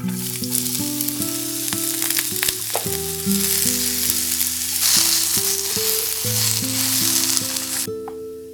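Food sizzling in olive oil in a frying pan, with occasional knocks of a utensil stirring it. The sizzle cuts off suddenly near the end.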